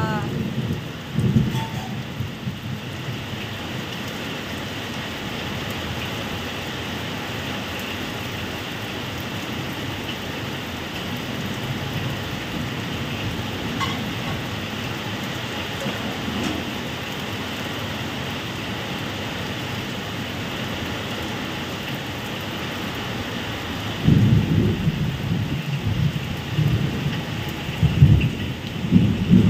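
Heavy rain pouring steadily, with low rumbles of thunder about a second in and again in the last few seconds.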